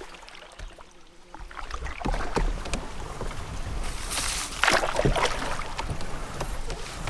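Canoe being paddled: paddle strokes swishing and splashing in the water, with scattered small knocks and clicks, getting louder about two seconds in and loudest with a strong swish around four to five seconds in.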